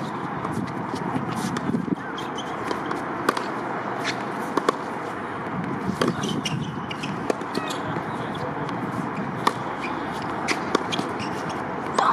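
Tennis balls struck by rackets and bouncing on a hard court: sharp pops at irregular intervals, a few of them louder, over steady background noise.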